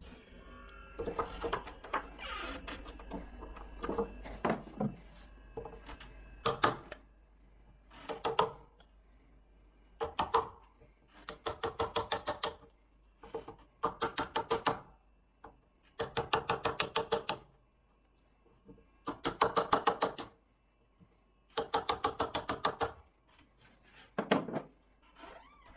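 A ratcheting tool clicking while screws are driven into the lockset, in repeated bursts of rapid, evenly spaced clicks, each a second or two long.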